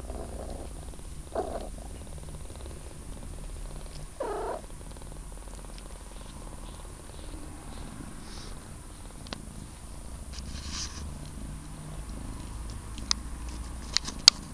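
Three-week-old kitten purring steadily, with two short mews about a second and a half and four seconds in. A few sharp clicks come near the end, the loudest just before it ends.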